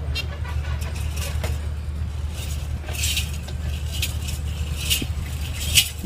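Metal bells and ornaments on a decorated bull jingling in short shakes, about one or two a second, as it walks, starting a couple of seconds in. A steady low hum lies underneath.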